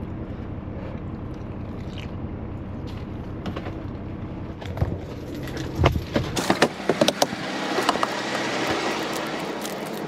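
Steady low engine hum heard inside a semi-truck's cab. About six seconds in it gives way to a few sharp clicks and knocks, then the broad, even noise of an open truck yard with passing vehicles.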